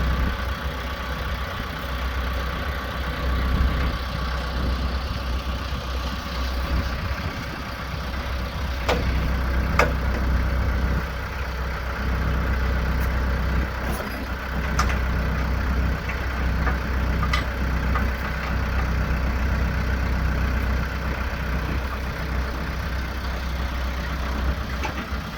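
Branson F50 compact tractor engine running steadily at idle, with a few sharp clicks or knocks in the middle.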